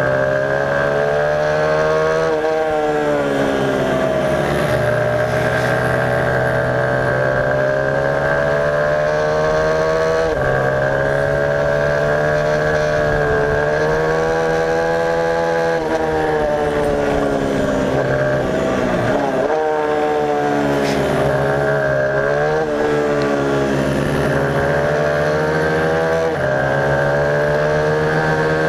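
Onboard sound of a mini road-racing motorcycle's engine at race pace. The revs climb in long sweeps and drop suddenly every few seconds through gear changes and corners, over a steady high whine.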